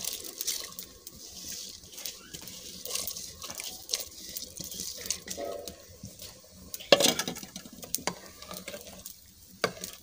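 Soaked rice being tipped from an aluminium bowl into a pot of boiling water, with a splashing hiss. Then scattered clinks of the metal bowl and pot, with one louder clank about seven seconds in.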